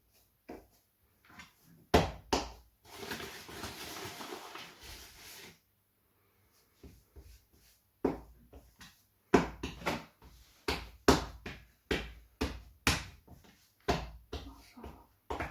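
Hands patting bread dough flat on a floured worktop: soft slaps, a few early on and then about two a second in the second half, with a few seconds of steady rustling between them.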